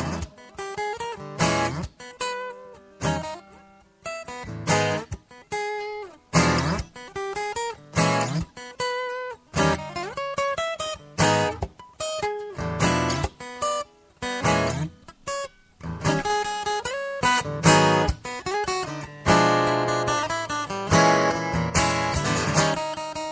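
Acoustic guitar strummed without singing: chords struck one after another in a loose rhythm, each left to ring and fade.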